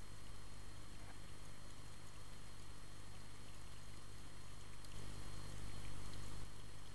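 Muffled underwater ambience picked up by an action camera in its waterproof housing: a steady low hum under a faint hiss, with a few faint clicks, swelling slightly about five seconds in.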